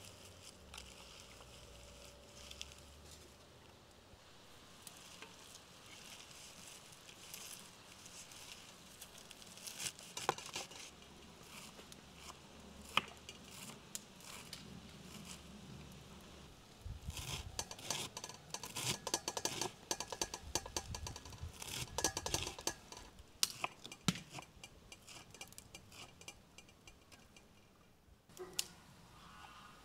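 Knife chopping fresh herbs and celery leaves on a wooden cutting board. The leaves rustle and there are a few scattered knocks in the first half, then a fast run of chopping strokes from about 17 to 24 seconds.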